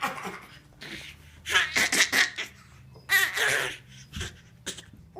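A pet's cough-growl: short, raspy, coughing huffs in clusters. There is a quick run of several about a second and a half in, a longer rougher one about three seconds in, and a couple of faint ones near the end.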